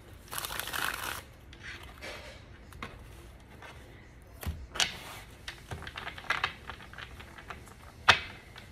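A deck of tarot cards being shuffled by hand, a quick rustling flutter in the first second. Then scattered light clicks and taps as the cards are handled and set down, the sharpest one near the end.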